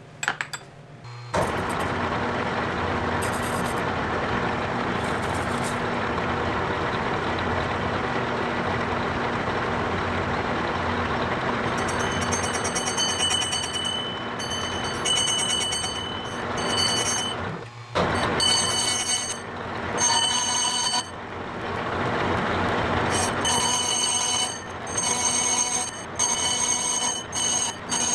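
Metal lathe starting up about a second in and running steadily with a low motor hum. From about halfway, a high ringing tone comes and goes repeatedly as the tool cuts metal, likely aluminium.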